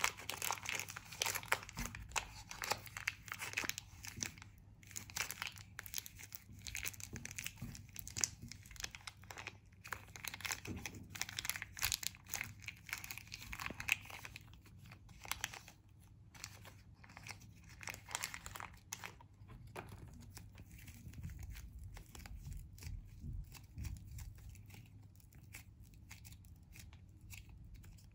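Thin clear plastic wrapper crinkling and tearing as it is peeled off a stick of plasticine, a dense run of sharp crackles. After about twenty seconds the crackling dies away into softer, duller handling sounds as the soft plasticine is kneaded by hand.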